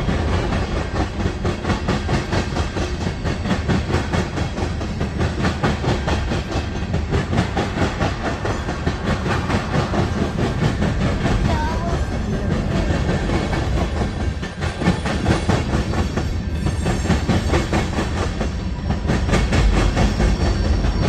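CN freight train's mixed tank cars, boxcars and hoppers rolling past, their steel wheels clicking steadily over the rail joints in a continuous rumble.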